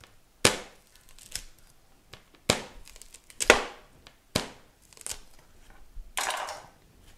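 Large kitchen knife chopping fresh corn cobs into chunks on a plastic cutting board: about six sharp cracking strikes at an uneven pace as the blade breaks through the cob and hits the board.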